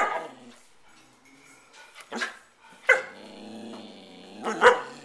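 Pet dogs barking: four sharp barks spread across a few seconds, with a longer drawn-out growl held between the last two.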